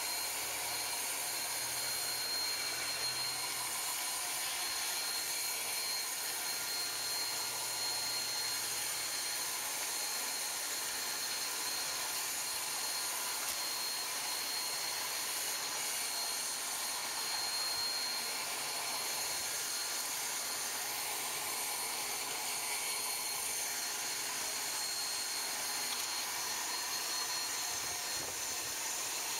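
Steady hiss of steam from a standing steam locomotive, with a thin high tone running through it.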